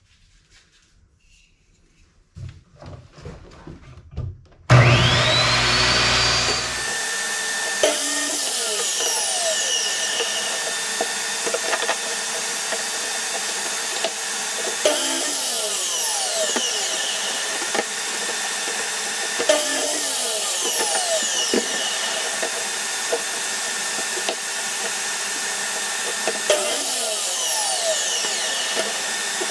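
A shop vacuum starts with a rising whine about five seconds in and then runs steadily. Over it, a sliding miter saw cuts wooden boards to length about four times, its motor whining down after each cut.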